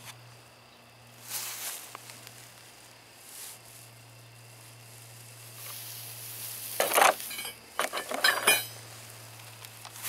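Rustling and crackling noise in several short spells, loudest about seven and eight seconds in, with a quick run of small ticks near the end, over a steady low hum.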